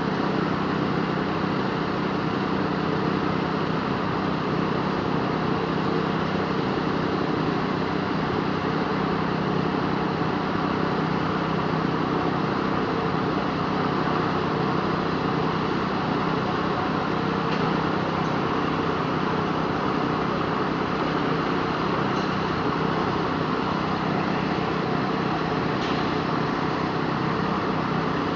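An engine running steadily at an even speed, a constant unchanging drone, with a few faint ticks near the end.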